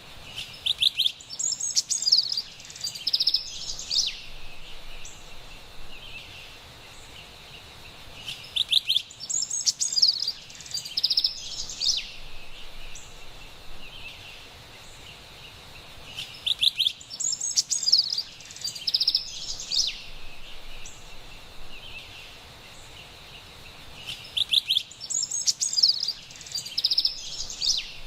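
Carolina wren singing: four near-identical bouts of rapid, rolling high-pitched song, each about three and a half seconds long and coming about every eight seconds, over a steady faint background hiss.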